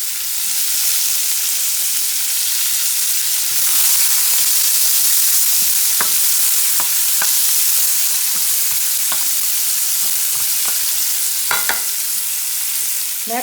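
Diced onion sizzling loudly in melted butter in a pan on an Aga hot plate, a steady frying hiss. A few short light clicks from about six seconds in, the last and strongest near the end.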